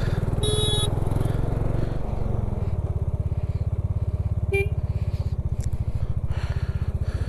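Motorcycle engine running at low road speed with a steady, even pulse. A short vehicle horn honk sounds about half a second in, and a brief beep just past the middle.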